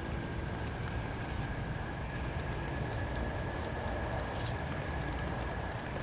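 Steady outdoor background noise: a low rumble with two steady high-pitched tones over it and a faint short chirp about every two seconds.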